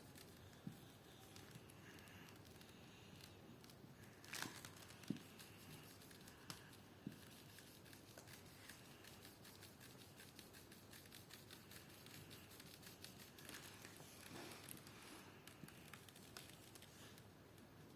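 Faint scratching of a marker colouring on paper, with a few light taps and clicks in the first half.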